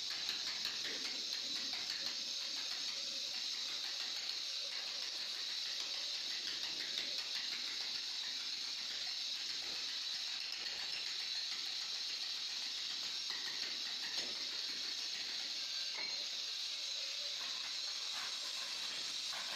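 A steady high hiss, with faint scraping and light clinks of broken stone tile pieces being pried loose and moved by hand.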